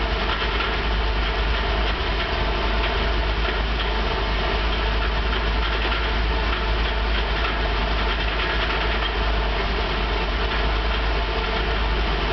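Vehicle idling with a steady, even rattle from the transmission over a low engine hum.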